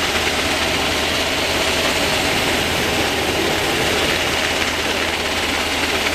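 UH-60J rescue helicopter hovering low overhead: the loud, steady noise of its rotors and twin turboshaft engines.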